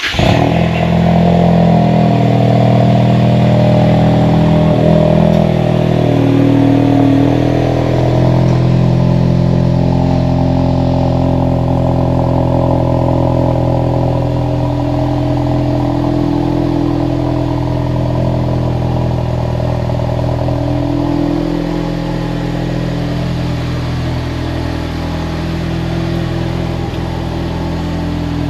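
Ford Mustang engine idling steadily just after being started, easing slightly after about eight seconds.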